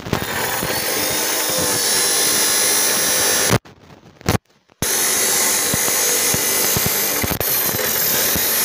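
Electric angle grinder with an abrasive cut-off disc cutting through a thin steel strip: a loud, steady grinding, with a brief break about three and a half seconds in.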